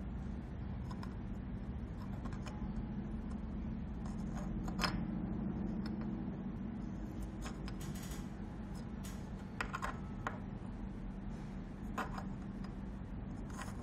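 A small plastic keystone jack being handled and turned over in the fingers against a wooden desk: scattered small clicks and scrapes, the sharpest about five seconds in. A steady low background hum runs underneath.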